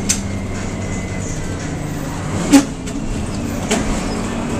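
Crown school bus engine running steadily, heard from the driver's seat inside the cab, with a few knocks and one louder clunk about two and a half seconds in.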